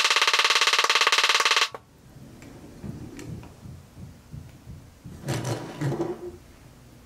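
A fast, even run of hammer taps peening the axle end of a small pressed-steel toy truck, cut off suddenly about a second and a half in. Then the truck's wheels roll back and forth over a mat with an uneven low rumble and a few light clicks, loudest a little past halfway.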